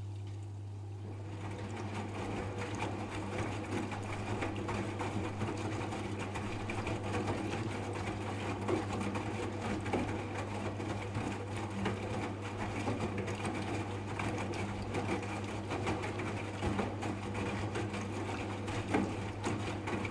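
AEG Lavamat 8000 Series front-loading washing machine during its final softener rinse: the motor whirs steadily as the drum turns the wet load, over a constant low hum, with many small clicks. The whirr sets in about a second in.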